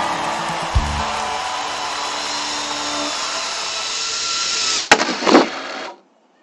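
Small 2.5-inch FPV cinewhoop quadcopter's motors and propellers whirring steadily, swelling a little as it comes close. Two sharp knocks, about five seconds in, are the loudest sounds, and then everything cuts off suddenly. The last chord of a guitar song fades out during the first few seconds.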